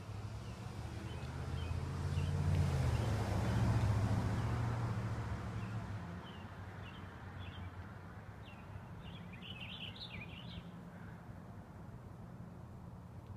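A vehicle passing by, its noise rising to a peak and fading away over a few seconds, followed by small birds chirping in short bursts of high calls.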